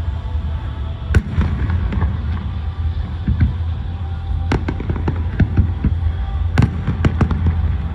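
Aerial fireworks bursting: an irregular run of sharp bangs and crackles over a steady low rumble. The biggest bangs come just after a second in, at about four and a half seconds, and twice near six and a half to seven seconds.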